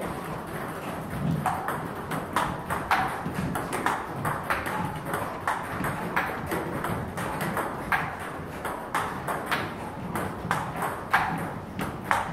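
Table tennis rally: the ball clicking off the table and the rubber-faced bats in a quick, continuous back-and-forth of hits and bounces, one bat faced with Butterfly Ilius S long-pimple rubber.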